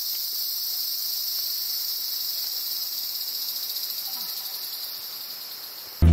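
Forest insect chorus: a steady, high-pitched buzz that grows a little quieter near the end.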